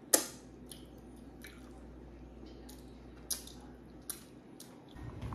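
Close-up wet eating sounds of someone eating seafood: a sharp lip smack just after the start, then scattered short squishy smacks and chewing.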